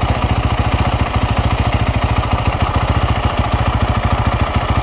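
2010 Yamaha YZ450F's fuel-injected single-cylinder four-stroke engine idling steadily with a fast, even pulse.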